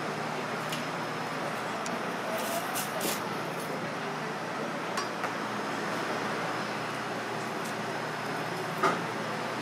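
Light knocks of a kitchen knife and chopsticks on a plastic cutting board as fried tempura is cut and plated: a handful of small clicks and one sharper knock near the end, over steady background noise.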